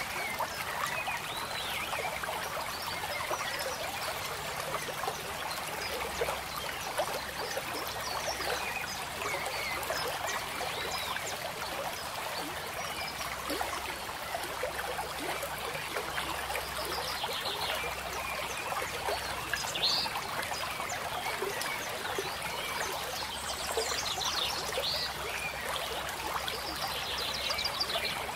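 Steady trickling of running water, like a small stream, with occasional short chirping calls and a few brief rapid trills over it.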